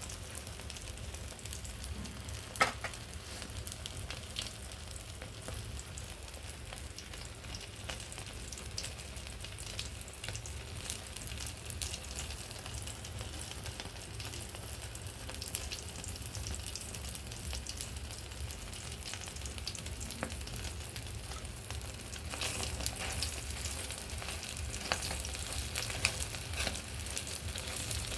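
Egg frying in hot oil in a pan: a steady sizzle with scattered crackles and one sharp click a few seconds in. The sizzle grows louder near the end.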